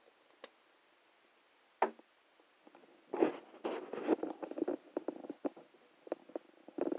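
Spice jar or grinder being handled: a sharp click about two seconds in, then a few seconds of irregular clicks and rattles.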